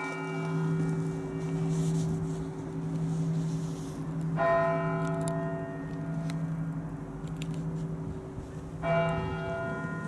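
Large church bell in a monastery bell tower tolling slowly, struck about every four and a half seconds: two strokes, about halfway through and near the end, each ringing out over the long low hum of the stroke before.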